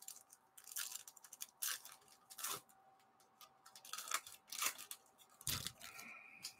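Foil wrapper of a Stadium Club baseball card pack being torn open by hand: a string of short crinkling rips and rustles, the last about five and a half seconds in as the cards come out.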